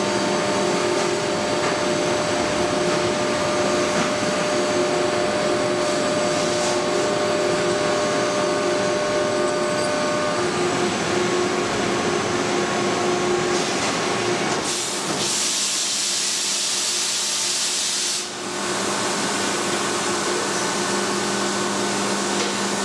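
Haas Super Mini Mill CNC machining cell running with flood coolant, a steady whir and hiss with a few steady hum tones. About fifteen seconds in, a louder, higher hiss lasts some three seconds.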